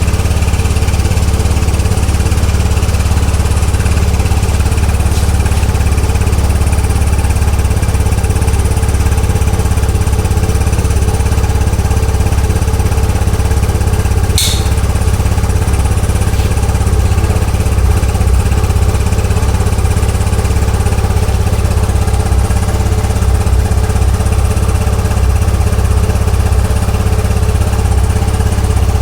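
Kymco VJR125 scooter's engine running steadily. About halfway through comes one brief high-pitched noise: the abnormal engine noise of this nearly new scooter, which the owner says comes every time it sets off.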